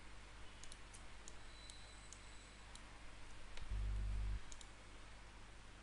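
Faint computer mouse clicks, scattered and irregular, over a quiet room background, with a brief low buzz about four seconds in.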